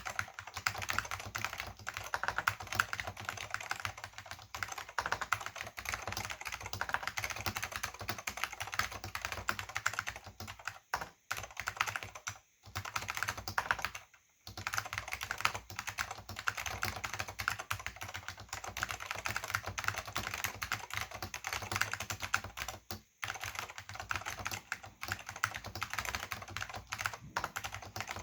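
Fast continuous typing on a Silicon Graphics Granite keyboard with orange Alps SKCM switches and thin PBT dye-sub keycaps, a dense stream of key clicks broken by a few brief pauses. The sound is hollow, with no bass.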